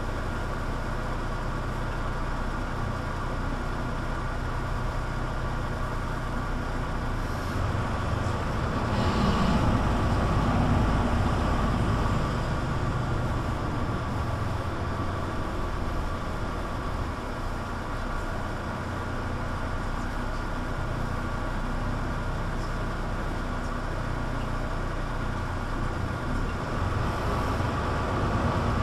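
Mercedes-Benz Citaro C2 G articulated bus running in service, a steady engine and road rumble heard on board. It gets somewhat louder for a few seconds about eight seconds in, with a brief hiss.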